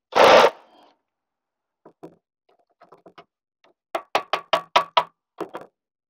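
Tool work on the bolts of a John Deere 260B backhoe's control valve housing: a short loud burst at the start, then scattered clicks and, about four seconds in, a quick run of sharp metallic clicks, about six a second.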